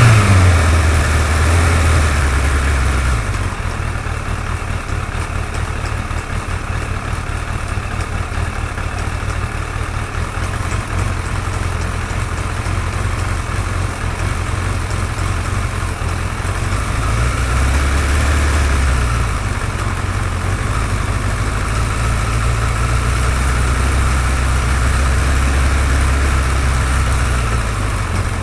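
Suzuki GSX-R1100 inline-four engine idling steadily after a throttle blip, run to show a ticking noise from the engine.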